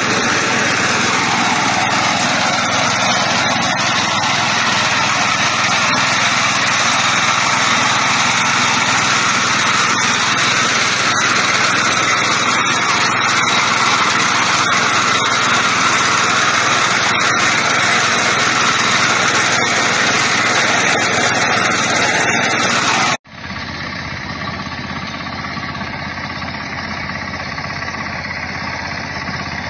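Small engine of a walk-behind rice reaper running steadily under load as it cuts standing rice. Near the end the sound breaks off abruptly and a quieter engine of the same kind carries on.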